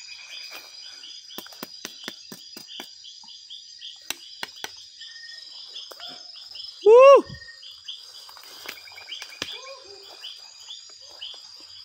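Night forest insects: a steady high cricket trill with a fast pulsed chirping over it. Scattered crackles of steps through the undergrowth, and about seven seconds in a short loud call that rises then falls in pitch.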